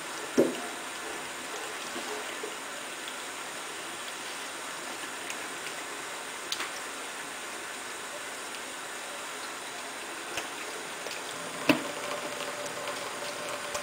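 Thin stream of tap water running into a stainless steel kitchen sink, splashing over a Bengal cat's head and onto a plastic drain mat while the cat drinks from it. A sharp knock comes just after the start and a louder one near the end.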